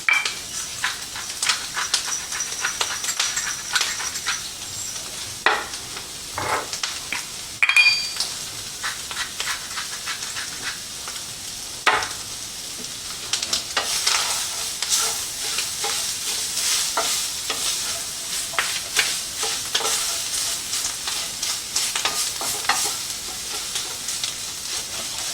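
Shredded beef and vegetables sizzling in a frying pan as they are stirred, with frequent short scrapes and clicks of the utensil against the pan.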